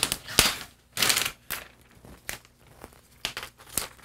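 Thin protective plastic film being peeled off by hand, crinkling and rustling in short bursts with a few sharp crackles.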